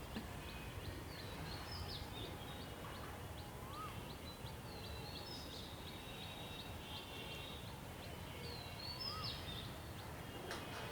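Rural outdoor ambience with birds calling. A run of short high chirps repeats a few times a second, and a short rising-then-falling whistle comes back every four to five seconds, over a low steady background noise.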